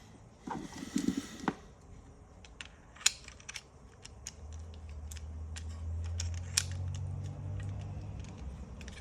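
Small plastic and metal parts of a Toyota seatbelt retractor clicking and tapping as they are handled and fitted back together by hand, with a short scuffle of handling about a second in.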